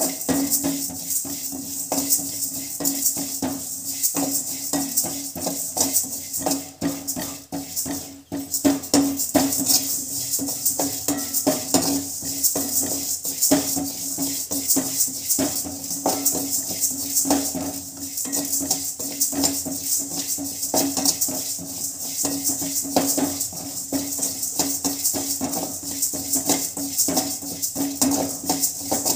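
Dry urad dal (skinned black gram) rattling and scraping across a metal pan as a spatula stirs it continuously during dry-roasting, with a steady low hum underneath.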